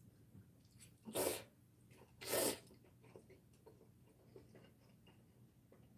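Cold bibim noodles being slurped, two short, loud slurps about a second apart, with faint small clicks of chopsticks and chewing in between.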